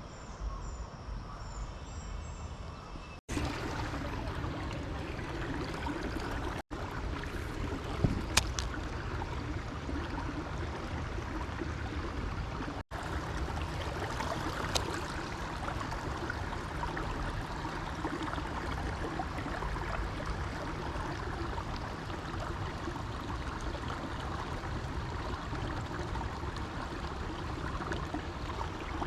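Creek water running in a steady rush. It cuts out abruptly three times, and there are a few sharp clicks about 8 and 15 seconds in.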